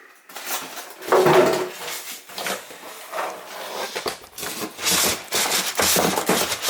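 Packaging being handled and pulled away from a new dishwasher: irregular rustling, scraping and knocks, loudest about a second in, with a long stretch of rustling in the second half.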